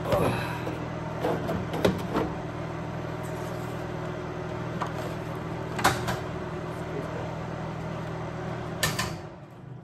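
Steady electrical hum of a MIG welder left switched on between welds, with a few sharp knocks and clanks of metal and tools being handled; near the end the hum dies away.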